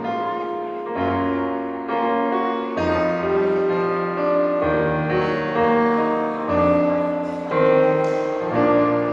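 Live band playing a slow ballad's instrumental ending: keyboard chords held over bass notes, the chord changing about once a second, with no singing.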